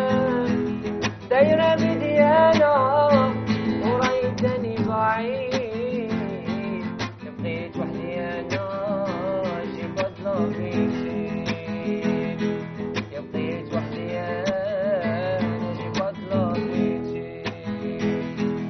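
A man singing a song in phrases, accompanied by a nylon-string classical guitar that is strummed and picked throughout.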